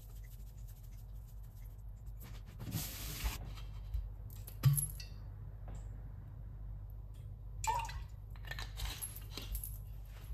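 Kitchen handling sounds over a low steady hum: a brief hiss about three seconds in, a sharp click a second and a half later, then a run of small clinks and knocks near the end.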